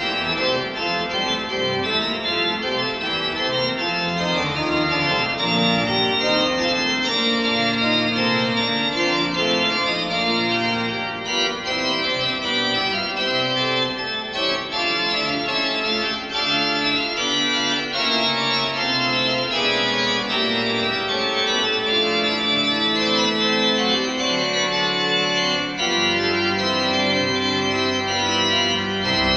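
Church pipe organ playing a Baroque chorale prelude: several lines of held and moving notes in counterpoint at a steady level, with the low bass notes growing stronger a few seconds before the end.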